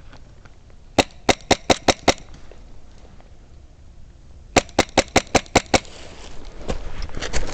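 Airsoft guns firing two quick strings of sharp shots, about six and then seven at roughly five a second. A few more shots come near the end as wind noise builds.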